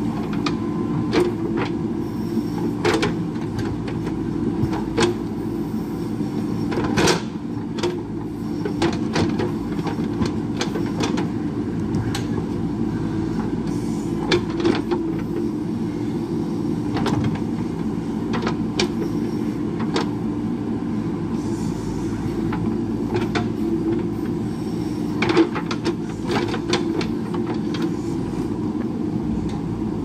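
JCB backhoe loader's diesel engine running steadily while the backhoe digs, with irregular sharp clanks and knocks of the steel bucket and arm against rock and stony soil.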